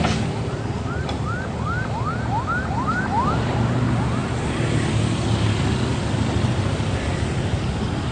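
Kubota U50 mini excavator's diesel engine running steadily. A run of short rising chirps, about two or three a second, sounds over it during the first half and fades out.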